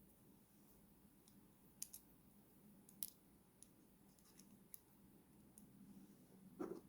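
Faint scattered clicks of small plastic model-kit parts being worked by hand over quiet room tone, with a duller knock near the end.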